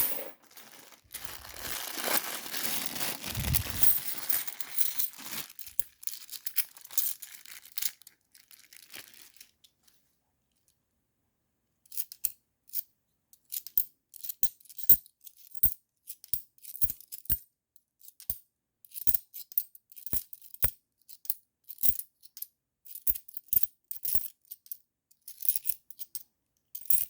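A plastic bag of 50p coins is torn open and the coins are tipped out with a rustle and a dull thud. After a pause comes a long run of sharp metallic clicks as the coins are sorted and set down one by one.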